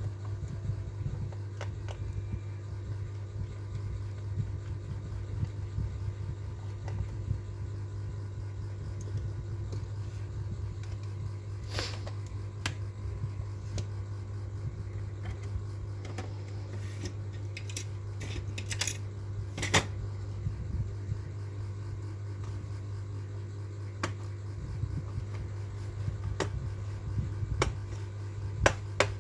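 Steady low hum with scattered light clicks and taps, as of small parts and tools being handled on a laptop being opened for an SSD upgrade.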